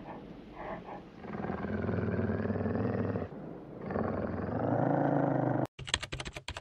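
Deep animal growl in two long stretches, the second louder, cut off abruptly near the end; then a quick run of sharp clacks.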